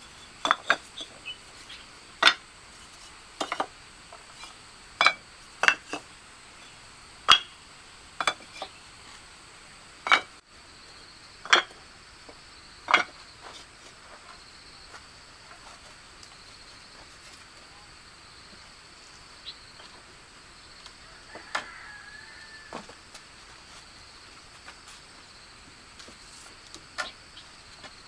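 About a dozen sharp clinks and knocks, like hard objects striking metal or crockery, scattered through the first half. They sound over a steady high-pitched drone of insects that carries on alone afterwards.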